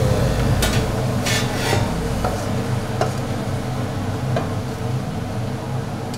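Cooking utensil scraping and clinking against cookware as the finished garlic butter chicken is dished up: a few short scrapes in the first two seconds, then scattered light clinks, over a steady low hum.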